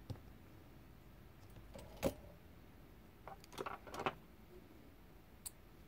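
Handling noise from a cordless drill's opened battery pack and small hand tools: a sharp click about two seconds in, a short clatter of small clicks and rattles a little later, and one more light tick near the end.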